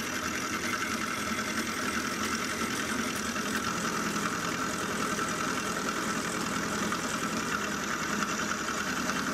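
Sieg X2.7L benchtop milling machine running, its end mill cutting a dovetail slot in a metal block: a steady mix of motor and spindle hum and the sound of the cut, without pause.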